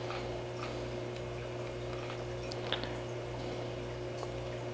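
Sony CCD-FX330 8mm camcorder running in tape playback: a steady low hum with a few faint steady tones above it, the lowest part pulsing evenly about twice a second, and a few faint ticks.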